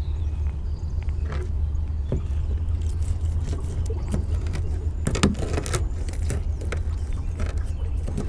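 Knife cutting up a redear sunfish (shellcracker) for cut bait on a plastic cutting board: scattered scrapes and clicks, with a louder cluster about five seconds in, over a steady low rumble.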